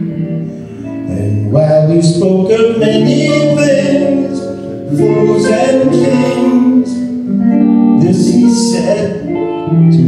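Live music: an electric guitar playing a slow ballad with a man's voice singing over it.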